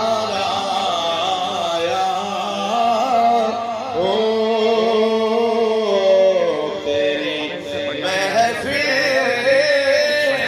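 A man's voice singing a devotional naat over loudspeakers, long held notes that waver and glide in pitch.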